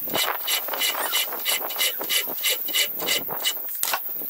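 A round file scraping in notches cut into the spine of a 4.5 mm Sleipner steel knife blank, at about three even strokes a second. The strokes stop about three and a half seconds in, followed by a single sharp click.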